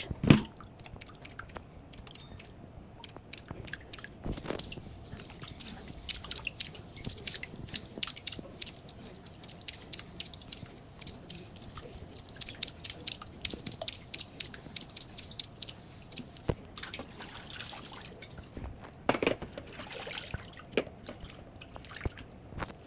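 Fish pieces being washed by hand in a bowl of water: small splashes, drips and clicks, with a brief run of pouring water part-way through.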